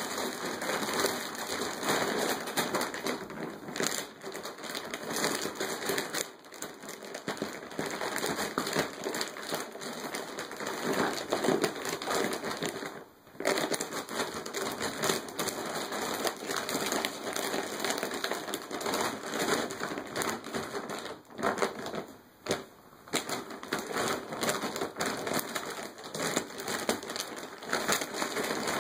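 Crinkling and rustling of an empty plastic dog food bag as a dog moves about inside it, nearly continuous, with short pauses about 13 seconds in and again around 21 to 23 seconds in.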